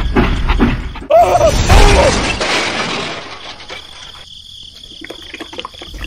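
Rhythmic chugging of a toy steam locomotive, cut off about a second in by a sudden loud crash-and-smash sound effect that fades away over the next couple of seconds.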